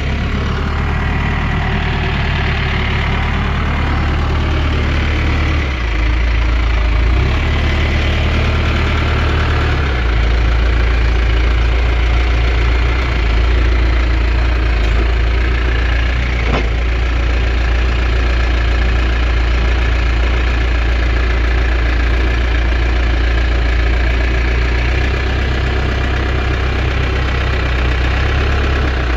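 Loader backhoe's engine running with a low, steady drone; its note shifts a few times in the first ten seconds, then holds steady.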